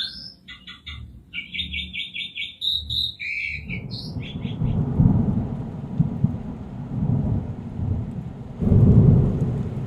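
Asian pied starling calling in quick runs of short repeated chattering notes, which stop about three and a half seconds in. A loud low rumbling noise then takes over, swelling twice.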